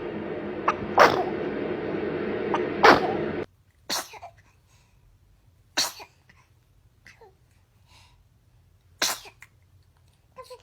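A baby sneezing five times in a row, each sneeze short and sharp. The first two come close together and are the loudest; the other three are spaced a few seconds apart.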